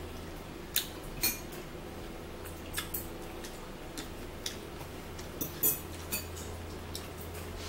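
Close-up eating sounds: about nine irregular, sharp clicks and smacks, over a steady low hum.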